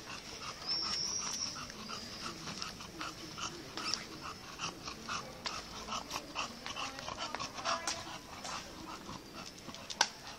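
English bulldog panting and wheezing as it walks, quick rhythmic breaths about two to three a second. A sharp click near the end.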